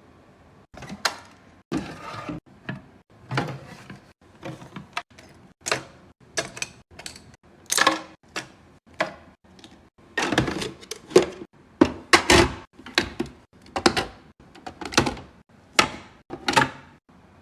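Skincare bottles, jars and plastic containers being handled and set down one after another: an irregular run of clacks, taps and knocks, thickest and loudest in the middle.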